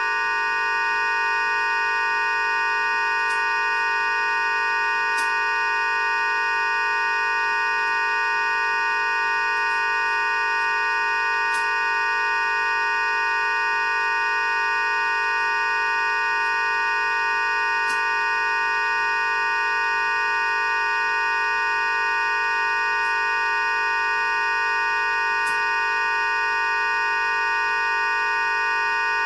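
A steady, unchanging electronic drone of many held tones sounding together, with faint high clicks every few seconds.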